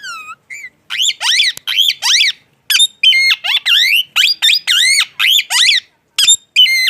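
Parrot calling: a rapid string of short, high chirping whistles, each sweeping up and down in pitch, with a brief gap near the middle.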